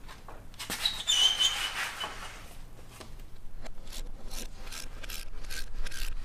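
A steel radiator guard splash tray scrapes against the underbody with a brief squeal as it is pushed into place. From about halfway, a socket ratchet clicks in repeated strokes as its bolts are wound in.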